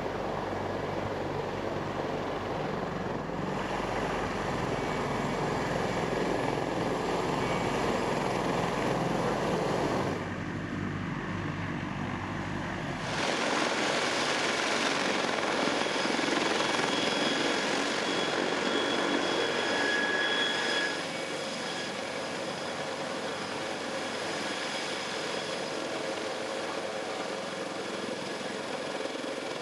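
Sikorsky CH-53K King Stallion heavy-lift helicopter running on the ground with its rotors turning, a steady engine and rotor noise with a high whine from its three turboshaft engines. The sound changes abruptly a few times, about ten, thirteen and twenty-one seconds in.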